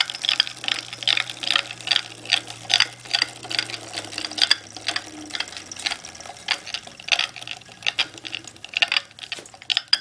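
A2B Metro G2 electric bike's drivetrain clicking and knocking as it is pedalled: an uneven run of sharp clicks, two or three a second, over a low hum that drops away about six seconds in. The owner suspects the stock 7-speed 11-28T freewheel, which he reads as under-lubricated from the factory.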